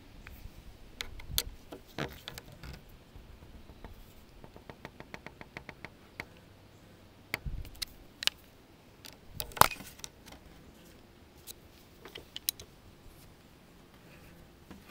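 Small metal clicks and knocks of a T-handle hex key and dial indicator being worked on the adjustment stations of a metal bamboo planing form. There is a quick run of even ticks about five seconds in, and the sharpest knock comes near ten seconds.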